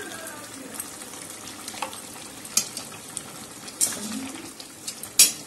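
Metal spatula stirring a soya chunk and potato curry in a metal pan on the stove, over the steady hiss of the curry cooking. The spatula clicks against the pan four times, the loudest near the end.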